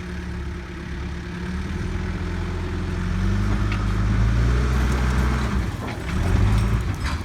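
Backhoe engine running, its revs rising about three seconds in and dipping briefly near six seconds, with a few light clicks.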